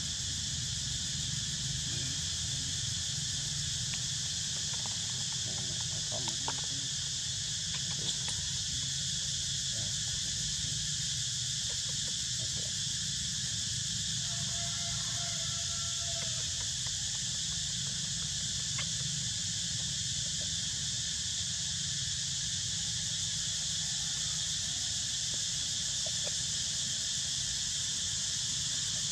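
Steady high-pitched insect chorus of a tropical forest, with a low steady rumble underneath and a few faint clicks.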